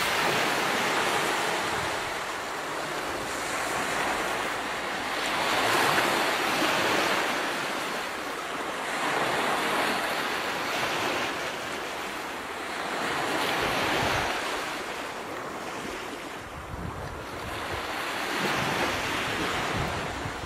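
Ocean surf: waves washing in and drawing back, swelling and fading every few seconds.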